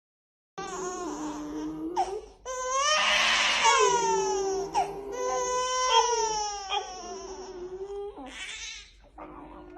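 A string of long, wavering crying calls, each sliding up and down in pitch and breaking off after a second or two.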